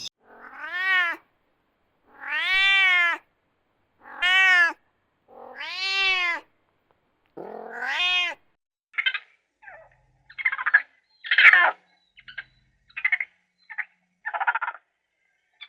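A domestic cat meowing: five long, drawn-out meows, each rising and falling in pitch, followed by a quicker run of shorter, rougher meows.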